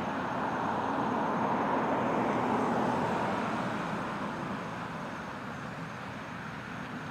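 Road traffic noise: a passing vehicle's steady hiss swells over the first couple of seconds, then slowly fades away.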